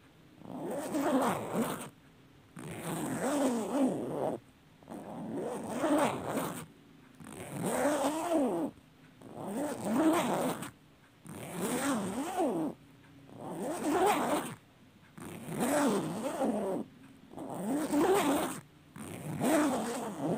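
A long zipper pulled open and shut over and over, about ten strokes of roughly a second and a half each, one every two seconds. The pitch of each pull rises and falls as it runs.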